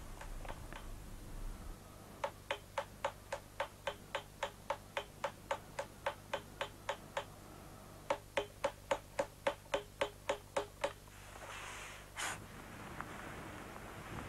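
Rapid, even taps of a hammer on a chisel cutting letters into a stone plaque, about five strikes a second. The taps come in two runs with a short pause between them, followed near the end by a brief rustle and a single sharp click.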